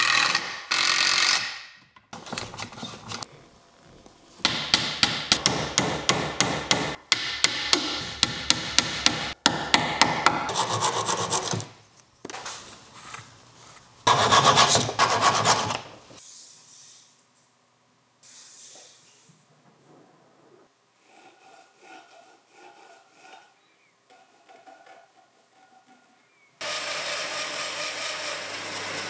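Runs of quick, rhythmic scraping strokes of a hand tool rubbing over a softwood frame. Near the end a bandsaw starts cutting through a wooden block with a steady, even noise.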